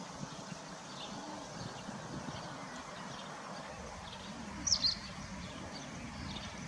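Steady outdoor background noise with a single short, high bird chirp a little past the middle.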